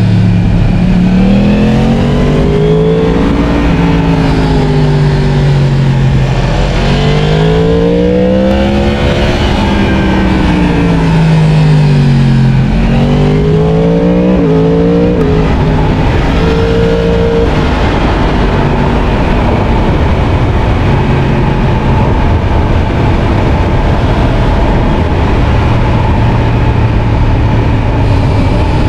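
Yamaha MT-10's crossplane inline-four engine heard from the saddle with wind noise, revs rising and falling through the bends in the first half, with a few quick steps in pitch from gear changes. It then holds a steady pitch while cruising. The engine is new and being run in.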